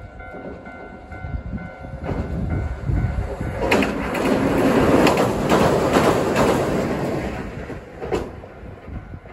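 A train passing close by, its noise swelling to a peak and fading, with the wheels clacking over rail joints several times as it goes.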